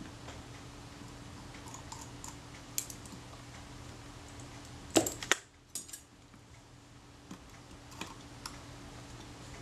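Small metal clicks and taps from a jeweller's screwdriver and tiny screws against the metal body of a Kodak Retina Reflex IV camera as screws are taken out, with a cluster of sharper clicks about five seconds in.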